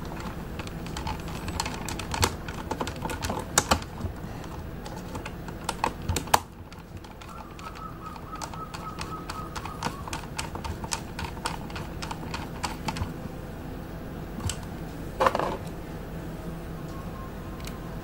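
Light, irregular clicks and ticks of a small screwdriver and fingers working on the plastic case of an RC radio transmitter, fastening its battery cover. A faint thin squeak comes in about seven seconds in and lasts several seconds, and there is a louder knock about fifteen seconds in.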